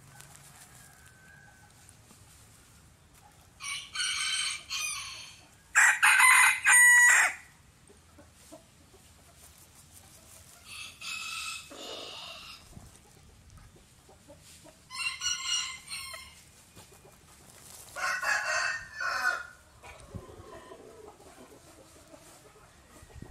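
Chicken calling in five separate bursts of one to one and a half seconds each, the loudest about six seconds in.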